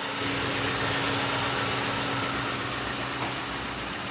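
A 2005 Ford Crown Victoria Police Interceptor's 4.6-litre V8 idling steadily and sounding healthy.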